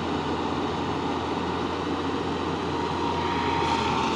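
Hitachi hydraulic excavator's diesel engine running steadily under load as the machine carries a hanging air compressor over rough ground. A thin whine joins about three seconds in.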